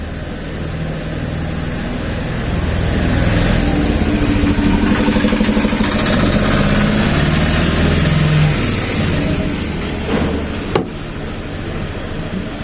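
A motor running with a shifting pitch, growing louder for several seconds and then dropping back, with one sharp click near the end.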